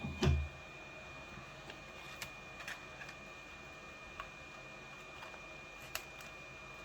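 Two low knocks at the start, then scattered faint clicks and ticks of tools prying at a phone's glued-on screen, over a steady high-pitched whine.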